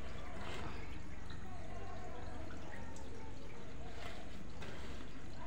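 Wet, soapy squelching and dripping as a leather shoe is scrubbed by hand with soapy water, with a few small ticks, over a steady low hum.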